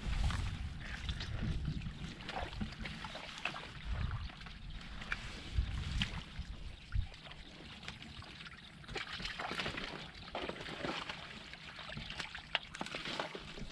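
Wind buffeting the microphone in uneven gusts, with shallow water and mud sloshing and splashing in short crackles.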